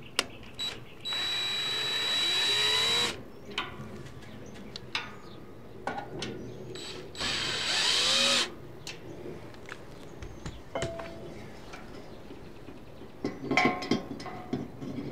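Cordless drill/driver running in two bursts, about two seconds and then a little over a second, backing screws out of the recliner's metal frame to loosen it. A few sharp clicks and knocks of metal parts being handled near the end.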